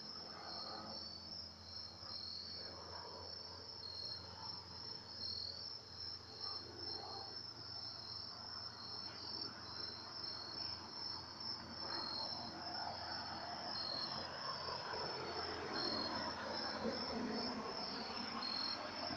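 Crickets chirping steadily in a fast pulsing rhythm, with a faint low hum underneath. A broad wash of lower noise grows louder over the last several seconds.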